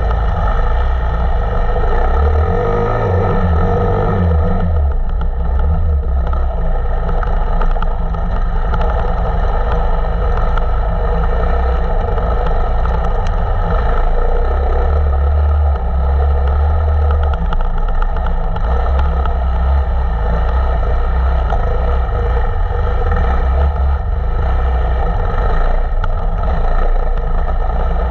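Enduro motorcycle engine, a KTM 525 EXC single-cylinder four-stroke, running continuously at a steady loud level, its low note swelling and easing.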